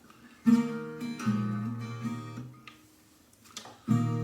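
Acoustic guitar strumming an introduction in E-flat: a chord struck about half a second in, changing to another chord a moment later and stopped short, then after a pause a fresh chord struck near the end.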